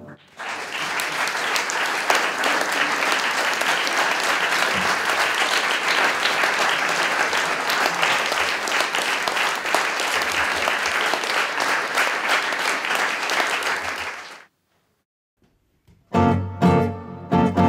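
Audience applauding, steady for about fourteen seconds before cutting off abruptly. After a moment of silence, two classical guitars start playing near the end.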